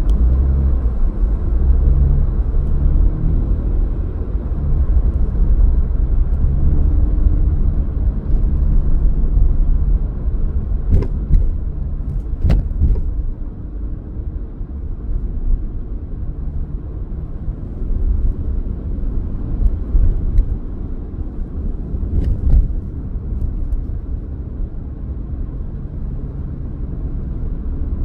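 Car being driven: a steady low engine and road rumble, with a few short sharp knocks or clicks in the middle.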